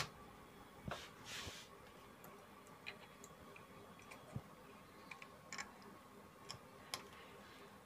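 Faint, scattered small clicks and taps of a power transistor and its metal leads being handled and pressed into place on a CRT TV's circuit board and heatsink, with a brief hiss just after a second in.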